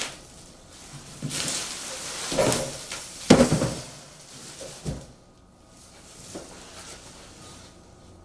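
Steel frame of a Best Choice Products SKY1700 hitch wheelchair carrier being flipped over on cardboard and plastic wrap: rustling and crinkling, then a loud knock about three seconds in as it sets down, and a lighter knock near five seconds.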